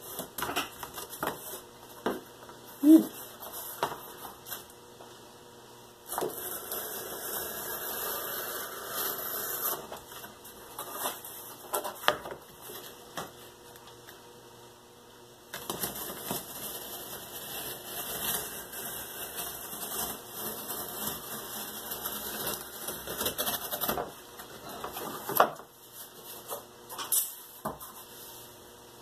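Utility knife slicing through corrugated cardboard in two long scratchy cuts, one of about four seconds and one of about eight. Scattered clicks and taps of cardboard pieces and the knife being picked up and set down come before, between and after the cuts.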